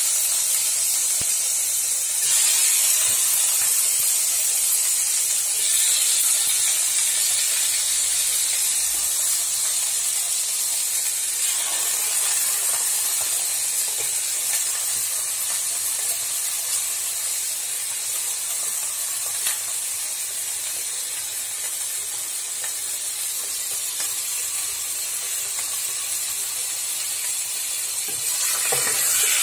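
Raw chicken cubes and garlic sizzling in hot oil in a nonstick frying pan: a steady high hiss that gets a little louder a couple of seconds in, eases slightly in the middle and rises again near the end.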